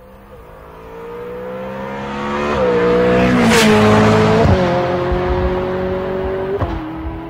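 A car engine accelerating through the gears: its pitch climbs steadily and drops back at each of about three shifts. It grows louder toward the middle, with a brief whoosh as it goes by, then fades.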